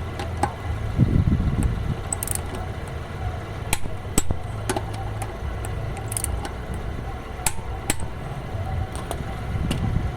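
Metal wheel bolts and hand tools clinking and tapping as the bolts are handled and refitted to a car wheel, in scattered sharp clicks. Under them runs a steady low hum, with two short low rumbles, about a second in and near the end.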